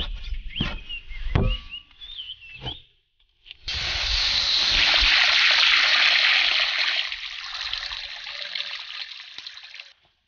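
A cleaver chopping braised pork stomach on a wooden chopping board, a couple of sharp chops in the first second and a half. Then, from about four seconds in, a stream of water pours steadily into a large iron wok for about six seconds and stops abruptly.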